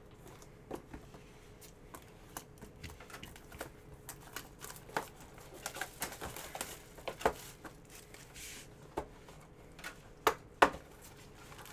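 Hands opening and handling a trading-card box and its packaging: scattered clicks, taps and rustles of cardboard and plastic, with a few sharper knocks in the last couple of seconds.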